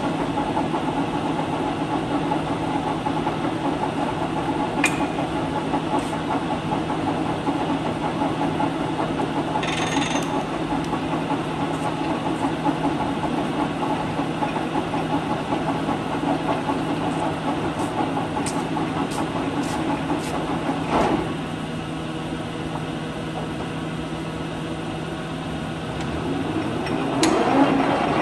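LeBlond 20-inch by 48-inch engine lathe running under power, a steady mechanical hum with a few sharp clicks. About 21 seconds in it drops quieter, then rises again near the end.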